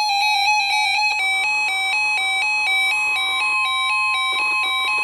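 Emergency Alert System alert tone: a buzzy electronic two-pitch warble that steps rapidly for about the first second, then alternates about twice a second. A steady higher tone joins it about three and a half seconds in.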